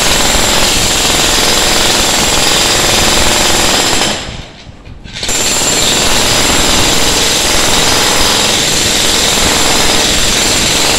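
Ryu RDH 50 electric demolition hammer chiselling into a reinforced concrete slab, hammering continuously. It stops for about a second around four seconds in, then starts again.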